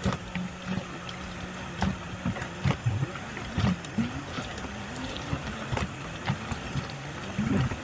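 Jeep engine running at low revs while crawling a muddy trail, its tyres splashing and sloshing through puddles, with frequent short knocks and clunks as the vehicle jolts over the rough ground.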